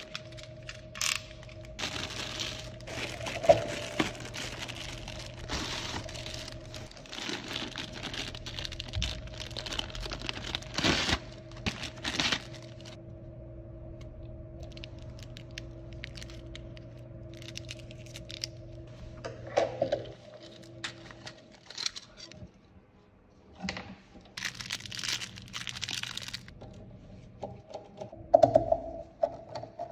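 Plastic packaging crinkling and rustling as it is handled, with scattered sharp clicks and knocks, over a faint steady hum.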